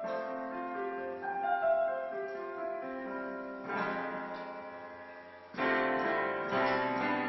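Roland digital piano played in slow, sustained chords. The first chords are held and left to fade, then a louder chord is struck about five and a half seconds in, followed by another a second later.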